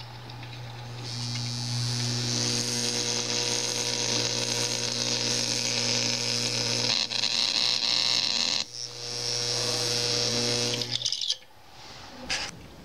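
AC electromagnet coil powered up, giving a steady low mains hum with a harsh, rattling buzz that joins about a second in. The sound dips briefly twice and then cuts off suddenly near the end as the power is switched off.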